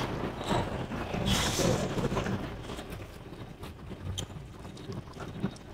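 Eating at a table: scattered small clicks and knocks over low background noise, a little busier in the first two seconds.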